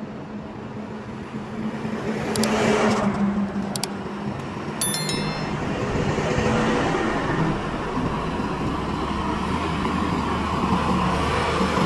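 Tata truck diesel engines running as the trucks move off, with a hiss about two to three seconds in. From about five seconds in, the low engine rumble grows louder as a truck drives up close.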